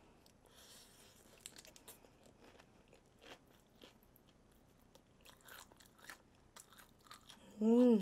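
Chewing and biting into crispy fried chicken, with faint, scattered crunches. Near the end, a short voiced exclamation from the eater, its pitch rising and then falling.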